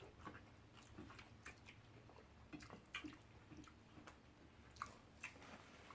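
Faint wet chewing and small mouth clicks from someone eating fufu with soup, scattered irregular smacks over a quiet room.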